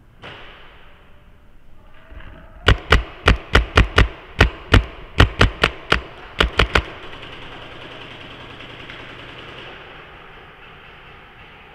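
Paintball marker firing a rapid, irregular string of about fifteen sharp shots, starting a couple of seconds in and lasting about four seconds. A steady hiss follows.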